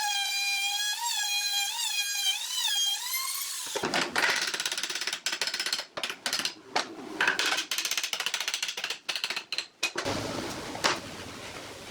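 A power tool's motor whining at a steady high pitch, dipping briefly a few times as if under load, stops about four seconds in. Then comes a quick run of dense clicking and knocking from workshop handling or cutting.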